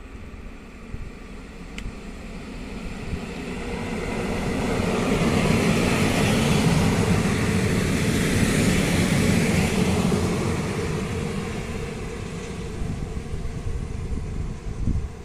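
Passenger train running past along a station platform: the rumble of wheels on rail swells over the first few seconds, is loudest through the middle, then slowly fades.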